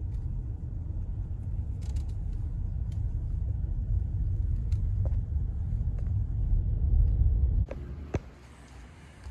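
Low, steady rumble of a car moving slowly, heard from inside the cabin. About three-quarters of the way through the rumble stops suddenly, and a couple of sharp clicks follow.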